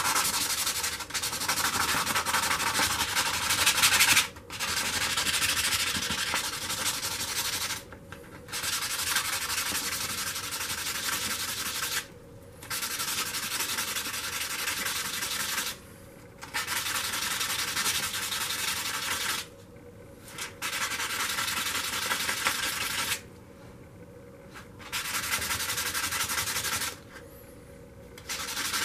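Head of a stainless steel leather stamp rubbed by hand on 400-grit sandpaper: a scratchy hiss in runs of about three to four seconds, broken by short pauses.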